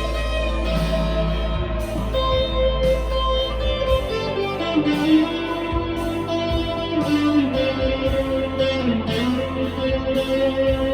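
2015 Squier Classic Vibe Telecaster electric guitar played through a Blackstar V2 amp with its modulation effect on, picking ringing notes in A minor.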